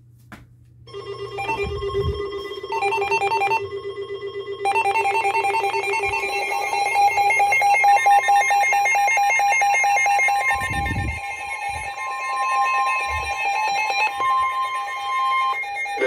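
Weather alert radios, a Midland weather radio and a second alert radio, sounding their alarms together: several steady and rapidly beeping tones start about a second in, and more join about five seconds in. The alarm signals an incoming warning that the radio displays as TORNADO.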